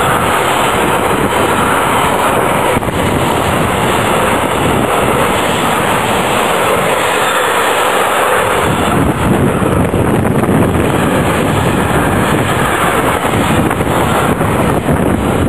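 Long freight train of container wagons carrying tank containers passing close by at speed: a continuous loud rush and rumble of wheels on rail, growing heavier in the low end a little over halfway through.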